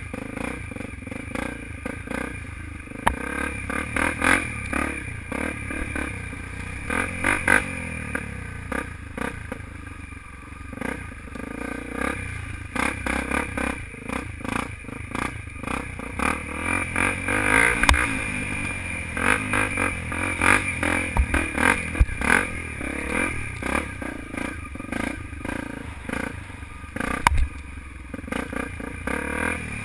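Off-road motorcycle engine revving up and backing off again every second or two as the bike is ridden through corners and over bumps, with a few sharp knocks from the bike.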